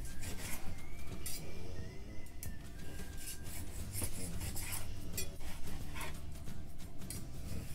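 A chef's knife slicing through grilled steak in repeated strokes, the blade scraping and tapping on a plastic cutting board, over background music.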